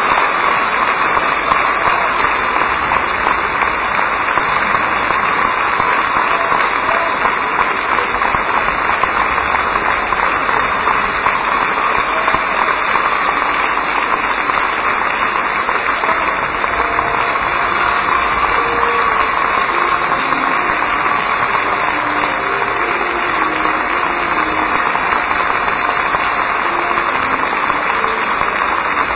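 Large theatre audience applauding steadily through a curtain call, with faint musical notes under the clapping in the second half.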